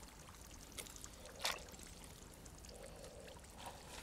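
Faint trickling and small splashes of water, with one sharper splash about a second and a half in.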